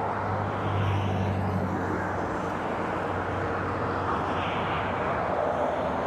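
Steady vehicle engine noise, with a low hum that is strongest in the first two seconds and then fades.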